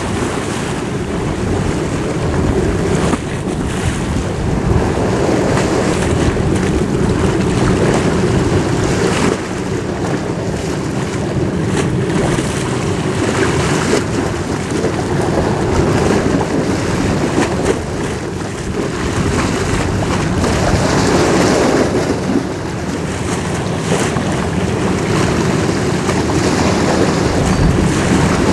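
Wind buffeting the microphone over the wash of harbour water, with a faint steady low hum underneath.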